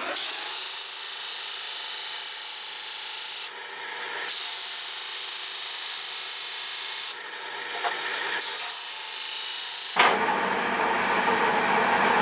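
Wooden workpiece pressed against a 16-inch velcro sanding disc spinning on a wood lathe: a loud steady grinding hiss. It drops away twice, about three and a half and seven seconds in, as the piece is lifted off the disc, and turns rougher near the end.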